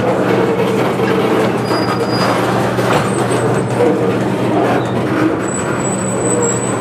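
Cylindrical covered hopper grain cars rolling past, their wheels rumbling and clacking over the rails. Thin, high-pitched wheel squeals come through three times, the last one longest, near the end.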